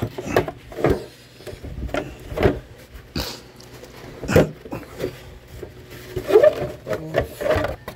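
Plastic Ecotec engine cover being pried up and lifted off: a series of sharp plastic knocks and clunks, with a few short squeaks near the end.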